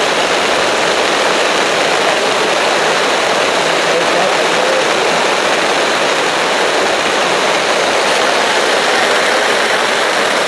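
Heavy rain falling on the tarp shelter overhead: a loud, steady hiss.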